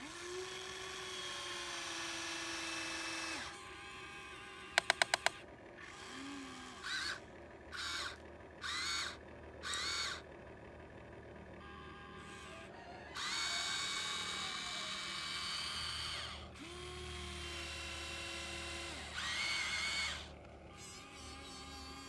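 Small electric motor of a radio-controlled model excavator whining in starts and stops as the machine is worked: a few runs of a few seconds each and several short bursts in between, with a quick series of four sharp clicks about five seconds in.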